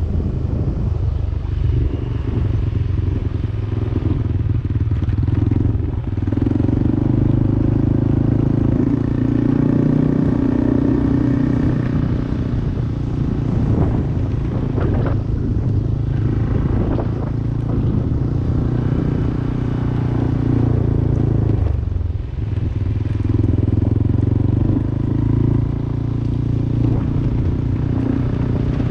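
Yamaha Aerox 155 scooter's single-cylinder engine running while riding, its note rising and falling with the throttle and easing off briefly three times.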